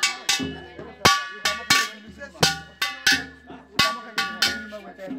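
Traditional Garo percussion playing in a steady repeating rhythm: sharp ringing metallic strikes over a drum. A strong beat comes about every 1.4 seconds, each followed by two lighter ones.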